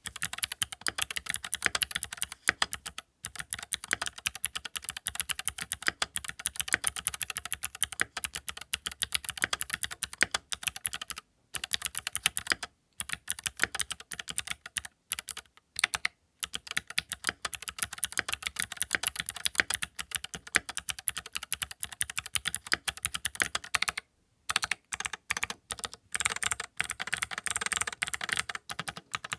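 Fast, steady typing on a mechanical keyboard with Gateron Melodic switches and Cherry Olivia keycaps, a dense run of keystroke clacks broken by a few brief pauses.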